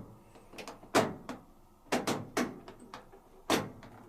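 Washing machine program selector dial being turned, clicking sharply through its notches several times at an uneven pace.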